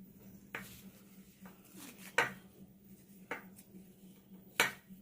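Four short, sharp clinks of a dish or container being handled on a hard surface, about a second apart, the second and last the loudest, over a faint steady hum.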